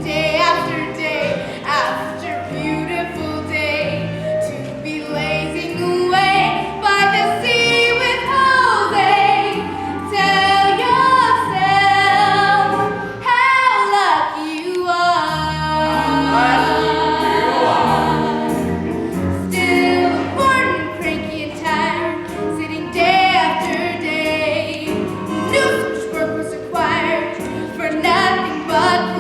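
Musical-theatre song: a female lead singing, with a chorus of voices joining her, over instrumental accompaniment.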